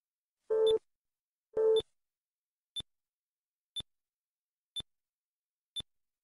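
Synthesized time-lapse sound track: a short high electronic tick about once a second marks each passing month. Two louder, lower, buzzy beeps a little over a second apart each mark a United States nuclear test.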